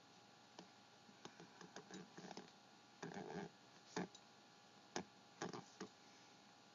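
Ballpoint pen writing on paper: faint scratching strokes in short runs, with a few sharper taps about four and five seconds in.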